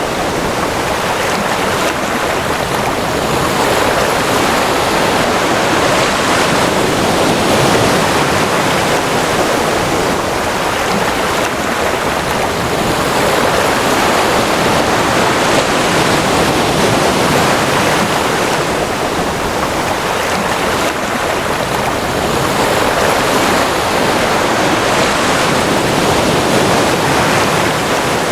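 Ocean surf: a continuous wash of breaking waves that swells and eases slowly every several seconds.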